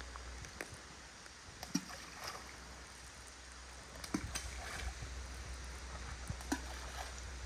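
Faint lapping water with a few scattered small knocks and clicks, over a steady low wind rumble on the microphone.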